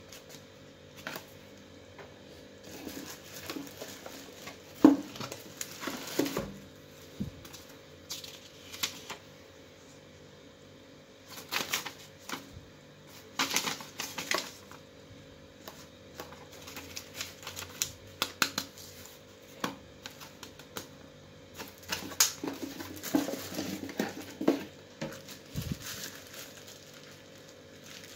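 Unboxing handling noise: a paper leaflet and a plastic bag being handled and rustled, with irregular small clicks and taps against a cardboard box, over a faint steady hum.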